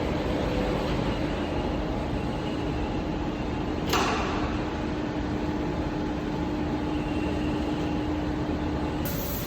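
Steady mechanical rumble with a steady hum, and one sharp knock about four seconds in; the hum stops near the end.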